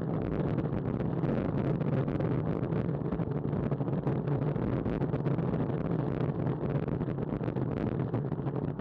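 Steady wind and road noise on a bicycle-mounted action camera's microphone while riding, a constant low rumble with rapid small buffeting flickers.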